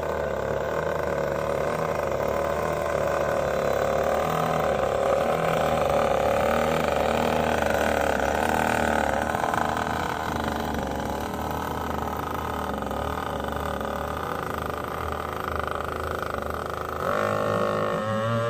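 RC boat's Arrow Shark XP254M two-stroke gas engine running, its note wavering slowly, then getting louder near the end and starting to pick up revs.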